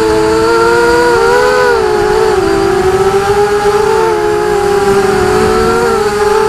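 Whine of a multirotor drone's electric motors and propellers, heard from its onboard camera: several close pitches that rise and fall together as the throttle changes, over a steady hiss.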